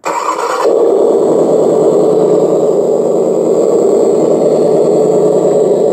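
Engine start-up sound from a model car's electronic sound module, played through its small speaker. It comes on abruptly with a brighter burst in the first moment, then settles into a loud, steady engine run.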